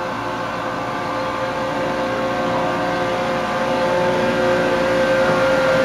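Miniature railway locomotive's engine running with a steady drone that grows gradually louder.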